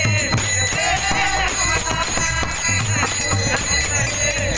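Devotional kirtan music: a voice singing a melody over a steady drum beat, with small hand cymbals jingling continuously.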